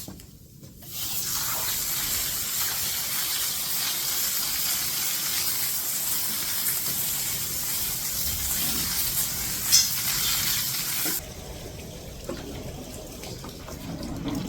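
Water running steadily with a hiss, turned on about a second in and cut off abruptly a few seconds before the end.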